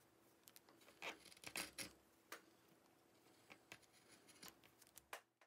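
Faint scraping of a hand carving gouge cutting into a wood block, with the strongest strokes about one to two seconds in and scattered light ticks after.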